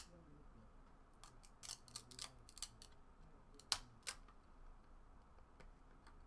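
Faint crisp clicks and snaps of old trading cards being peeled apart and handled, the cards stuck together; one sharper snap a little before the 4-second mark.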